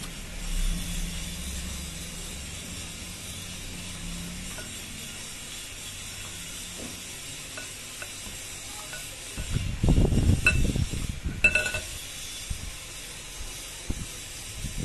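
Close-up eating sounds: chewing and fingers working through crab and rice, with scattered small clicks. About ten seconds in, a louder stretch of eating noise lasts two to three seconds, with a couple of short ringing clinks.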